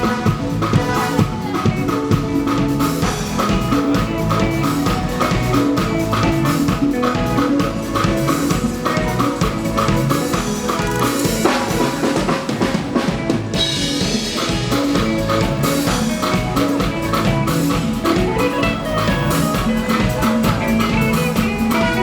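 Live band playing with the drum kit prominent over bass and pitched instruments in a steady rhythm; the sound gets brighter about two-thirds of the way through.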